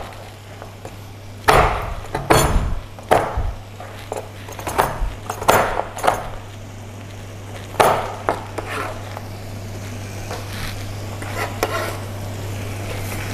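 A chef's knife slicing and chopping a hard block of palm sugar on a plastic cutting board: a series of irregular knocks, loudest in the first eight seconds. A steady low hum runs underneath, and near the end a soft sizzle rises from the spice paste in the wok.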